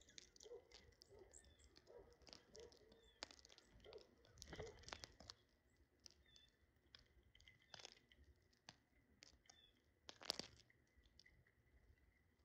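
Faint, irregular clicks and taps of small birds pecking at food, with a louder crackle about ten seconds in.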